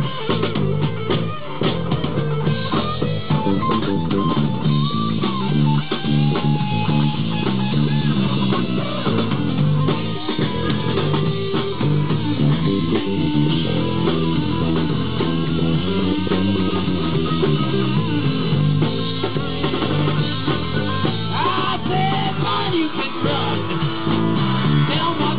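Live rock band playing: electric bass (a custom purpleheart DP bass), drum kit and electric guitar together, with a steady run of bass notes under the drums and a few bent guitar notes.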